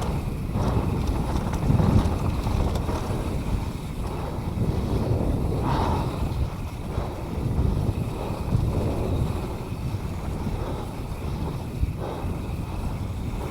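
Wind buffeting an action camera's microphone, mixed with the rumble and rattle of a mountain bike rolling fast down a dirt trail. The noise is steady and deep, with a few brief surges.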